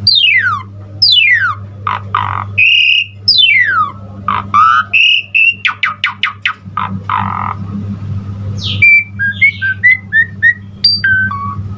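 Jalak suren (Asian pied starling) singing a loud, varied song of steep falling whistles, short buzzy notes and a quick run of clicks about six seconds in, over a steady low hum.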